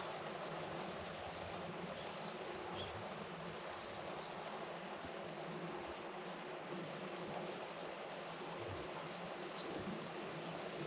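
Steady rain falling, with a short, high chirp repeating evenly about two to three times a second and a few brief, sliding bird calls about two seconds in.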